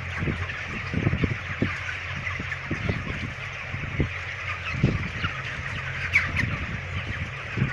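A large flock of 28-day-old broiler chickens chirping and squawking all together, with irregular low knocks and a steady low hum underneath.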